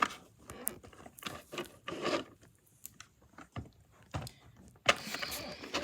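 Scattered light clicks, taps and rustles of a plastic action figure being handled, with a longer rustle starting near the end.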